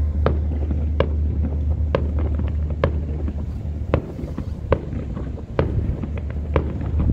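Fireworks shells bursting in a steady string of sharp bangs, about one a second, over a constant low rumble.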